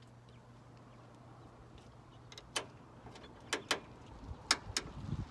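Hand-fitting of a hooked hold-down bracket in a truck's engine bay: about five sharp clicks and light knocks of the parts spread over the second half, with dull handling bumps near the end over a faint steady low hum.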